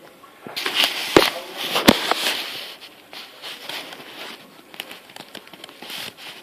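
Crinkling and crackling of plastic being handled close to the microphone, loudest in the first couple of seconds, with two sharp clicks about a second and two seconds in and scattered lighter ticks after.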